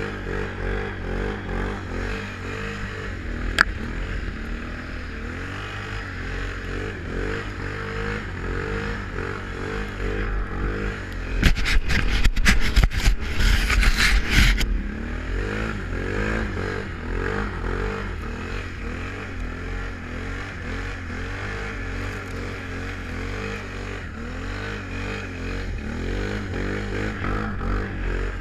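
Can-Am Renegade 1000 ATV's V-twin engine running under way through snow, its pitch rising and falling with the throttle. About halfway through, a loud burst of rough noise drowns it out for about three seconds.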